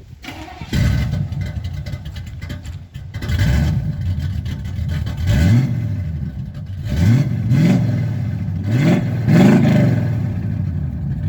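Car engine catching about a second in and running, with the throttle blipped four times in the second half so the revs rise and fall.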